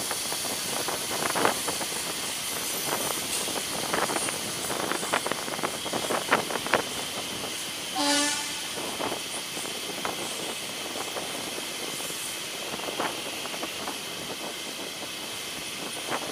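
Mumbai suburban EMU train running at speed, heard from aboard: a steady rushing hiss with the wheels clicking irregularly over rail joints and points. A short horn blast sounds about eight seconds in.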